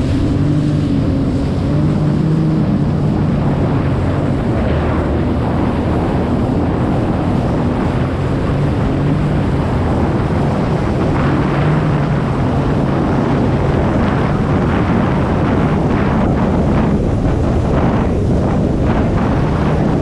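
Jet ski engine running on open water, with heavy wind rush on the microphone and water noise. The engine's pitched drone is clear in the first few seconds, then is mostly buried under the wind and splashing.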